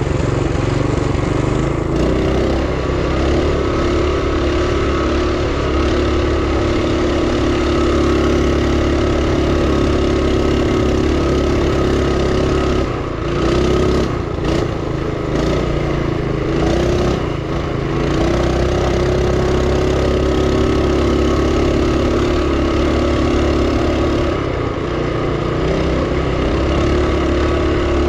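A mini bike's Duromax 212cc single-cylinder four-stroke engine, running on propane, pulling steadily at high throttle while being ridden. The engine note wavers and dips briefly about halfway through, then comes back up.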